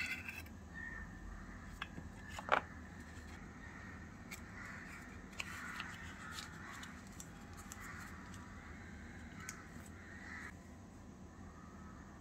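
Light crinkling and rustling of a foil collar and parchment strip as they are peeled off a miniature cake, with one sharp click about two and a half seconds in.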